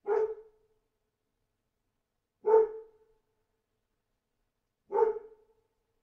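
A dog barking: three single barks, evenly spaced about two and a half seconds apart.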